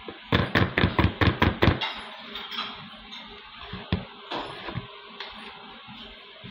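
A spatula knocking against a plastic mixing bowl while cake batter is folded by hand: a quick run of about eight sharp knocks in the first two seconds, then one more knock and a few softer scrapes.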